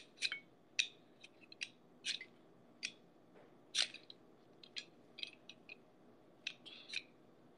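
Faint, irregular sharp scrapes and clicks of a kitchen utensil working on potatoes, a dozen or so short strokes.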